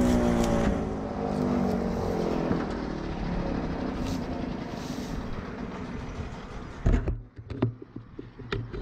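A motor vehicle's engine drone, falling in pitch and fading as it passes and moves away. A few sharp clicks and knocks follow near the end.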